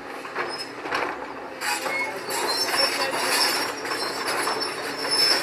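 JCB tracked excavator working, with metal squealing and clanking from the machine as it swings and lifts its bucket. The high squeal grows louder about one and a half seconds in.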